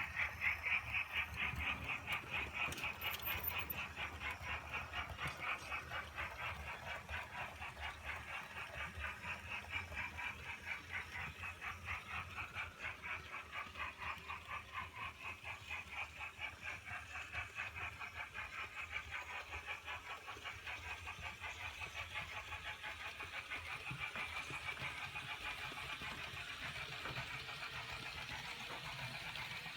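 Märklin S3/6 model steam locomotive's mSD/3 sound decoder playing fast, even steam chuffing as the model runs, over a low rumble from its running gear.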